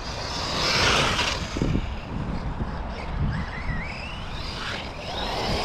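Losi Lasernut U4 1/10 4WD brushless RC rock racer being driven: a rush of noise about a second in, then the brushless motor's whine rising in pitch twice as it speeds up in the second half.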